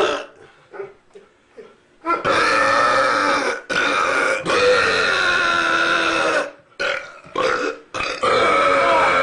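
Long, loud, deliberate human belches. After a couple of seconds of small gulps, a drawn-out pitched burp starts about two seconds in and carries on for over four seconds with two brief breaks. Another long belch starts near the end.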